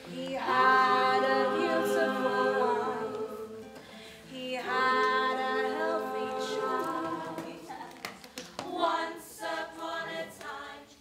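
Unaccompanied singing by the cast, voices holding long notes through two phrases, then shorter notes near the end.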